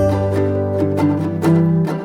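Background music of plucked string instruments, with a held low bass note.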